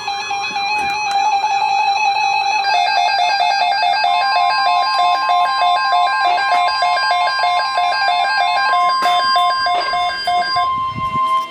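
Music with a fast, repeating plucked-string note. About four seconds in, a steady single-pitch alert tone starts and holds under it: the attention tone of an Emergency Alert System broadcast.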